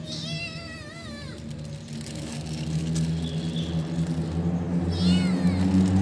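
A cat meowing twice: one long wavering meow at the start and a shorter falling one near the end. Under it a motor vehicle's engine hums low and steady, growing louder as it approaches.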